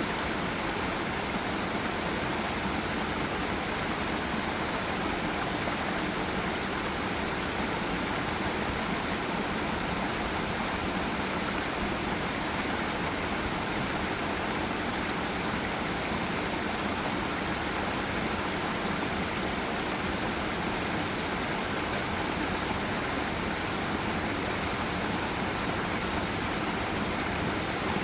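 Forest river rushing over a small waterfall: a steady, even wash of flowing water with no change throughout.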